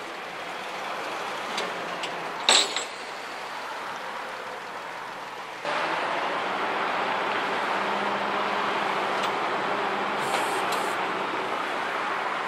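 Flatbed tow truck's engine running with street traffic noise, a single sharp clank about two and a half seconds in. Past the middle it becomes louder and steadier, with a low hum.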